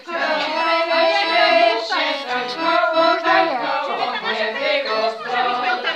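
Music with singing: a song sung in held and gliding notes.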